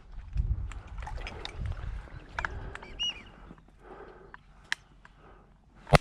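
Water sloshing and splashing in the marsh, with scattered clicks and knocks, a brief chirp about three seconds in, and a loud sharp crack at the very end.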